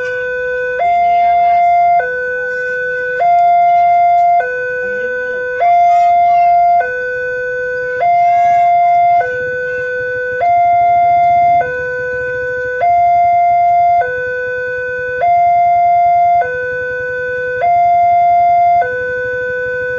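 Railway level-crossing warning siren sounding a two-tone hi-lo alarm, alternating between a higher and a lower tone about every second and a quarter. It is the crossing's signal that a train is approaching.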